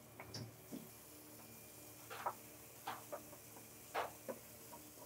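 Wooden spatula scraping and tapping against a non-stick frying pan while stirring ginger-garlic paste in a little oil: faint, irregular clicks and scrapes, about ten of them.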